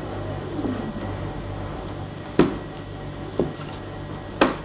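Kitchen knife cutting raw chicken meat off a drumstick bone on a plastic cutting board, with soft wet squishing and three sharp taps of the blade against the board about a second apart in the second half. A steady low hum runs underneath.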